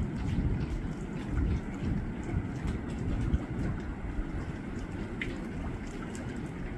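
Wind buffeting the microphone over open sea: an uneven low rumble, with a few faint ticks and splashes of water.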